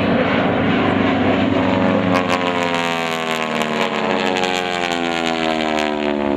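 North American T-6 Texans' Pratt & Whitney R-1340 radial engines and propellers droning as the aircraft fly past overhead. The pitch falls steadily as they go by.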